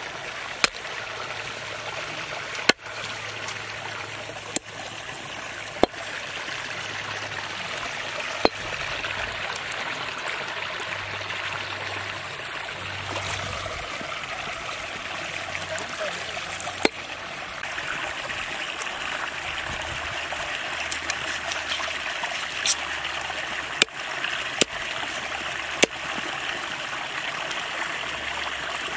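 A large curved chopping knife striking through raw chicken into a wooden log block, about ten single sharp chops at uneven intervals. Under them runs the steady rush of a small stream.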